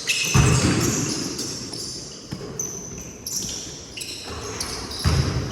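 Basketball play on an indoor court: the ball bouncing, with heavy thumps just after the start and again about five seconds in, and sneakers squeaking on the floor.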